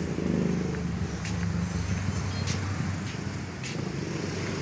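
Vehicle engine running steadily at low revs, with a few short clicks about a second apart.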